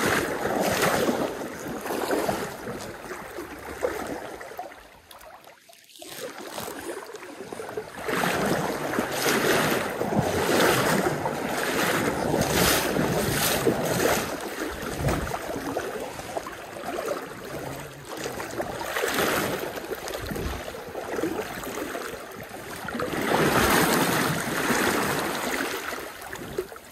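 River water splashing and swishing around a person wading through the current, in repeated surges from the strides. It drops away briefly about five seconds in.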